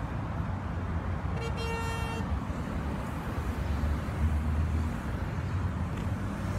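A vehicle horn honks once, a single steady tone lasting under a second about a second and a half in, over a steady low rumble of traffic.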